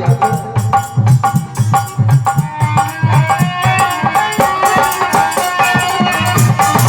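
Instrumental interlude of a folk devotional song: steady rhythmic drum beats with rattling hand percussion under a sustained melody line.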